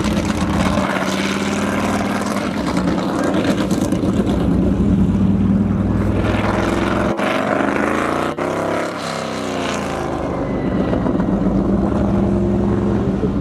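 Lola T70's V8 engine running at low speed, a steady loud hum, with its pitch shifting as the car passes close by around the middle.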